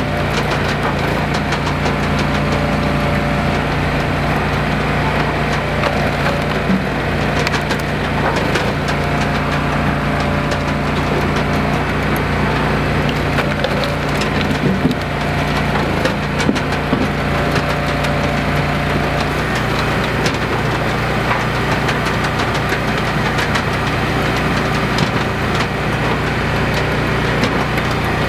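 Hydraulic log splitter running steadily under its engine while its ram drives hardwood rounds through the wedge, the wood cracking and splintering apart. The engine's note changes about twenty seconds in.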